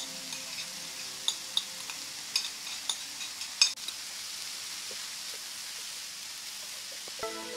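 Stir-fry sizzling in a frying pan as minced cauliflower 'rice' goes in with chicken and vegetables and is stirred with a spatula. A steady hiss, with a run of sharp taps and scrapes of the spatula against the pan between about one and four seconds in, the loudest near three and a half seconds.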